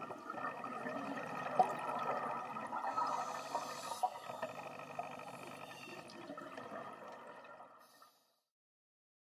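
Bubbling, gurgling underwater noise with a few sharp ticks, fading out about eight seconds in.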